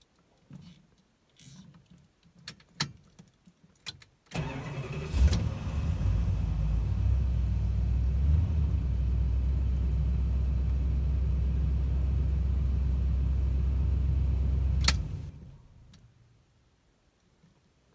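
A few light clicks and knocks, then about four seconds in the classic Chrysler's engine is cranked and catches. It runs steadily for about ten seconds, then is switched off and dies away.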